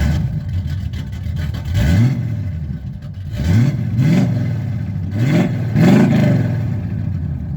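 Car engine running and being revved in short blips, about five times, each rev rising quickly in pitch and dropping back.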